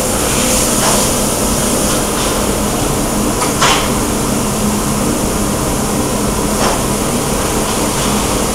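Steady hum and running noise of a high-frequency plastic welding press with automatic conveyor in operation, with a short burst of noise twice, a few seconds apart.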